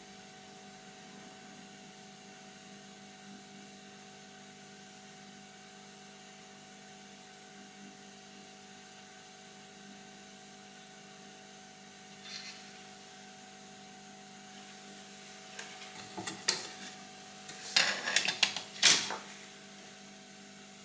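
Steady hum and high whine from the electrical equipment at a soldering bench. About three-quarters of the way through comes a cluster of sharp clicks and knocks.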